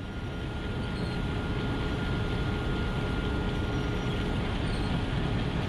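Combine harvester running in the field: a steady machine noise with a faint steady whine on top, fading up over the first second.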